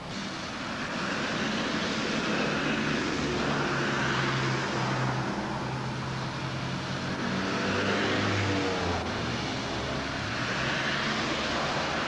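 Road traffic passing: car engines and tyre noise rising and fading a few times over a steady hum.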